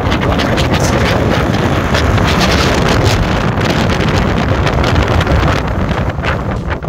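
Strong wind blowing across the microphone, a loud, steady rushing with heavy low rumble, easing slightly near the end.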